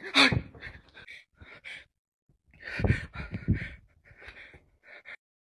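A man's heavy, gasping breaths close to the microphone in short bursts, loudest about three seconds in.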